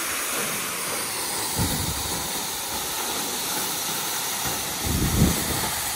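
Waterfall pouring onto rocks, a steady rushing hiss. Two brief low rumbles about one and a half seconds and five seconds in.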